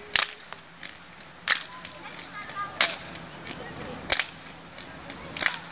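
A group of youth footballers clapping their hands together in unison while jogging, one sharp clap about every 1.3 seconds, five times, with scattered fainter claps between.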